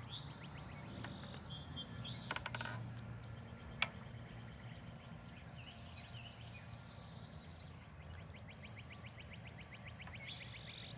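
Wild birds singing outdoors: a fast, even trill of quick repeated notes near the start and again near the end, with a few short high chirps in between, over a steady low background rumble. A single sharp click sounds about four seconds in.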